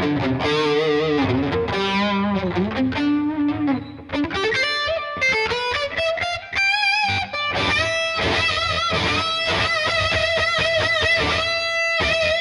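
Gibson SG Standard electric guitar played through distortion: a lead line with string bends and vibrato, then a slide up in pitch around the middle. Fast repeated picking on one high note follows and runs until near the end.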